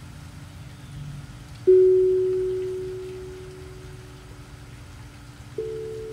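Steel tongue drum struck with a mallet twice, about four seconds apart: a loud note that rings and slowly fades, then a higher, softer note, with a lower note from an earlier strike still ringing faintly underneath.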